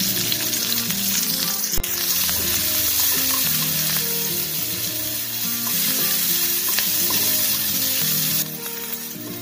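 Chopped onions and green chillies sizzling in hot oil in a frying pan while a wooden spatula stirs them, with one sharp knock about two seconds in. The sizzle eases near the end.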